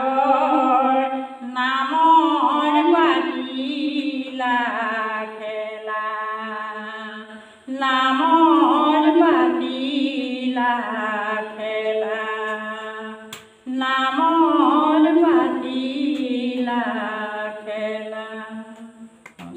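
A woman singing an Assamese song unaccompanied, in three long sung phrases with short breaths between them.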